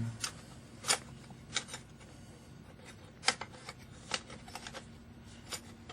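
A handful of sharp clicks and light taps at irregular intervals as a freshly cut piece of sheet metal is handled and set into place.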